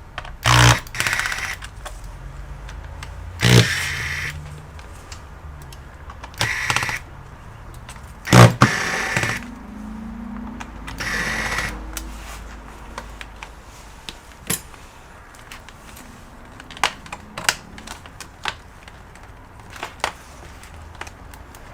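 Laptop parts and hand tools being handled on a workbench: three loud knocks in the first half, each with some scraping or rubbing, then lighter scattered clicks of small parts and screws.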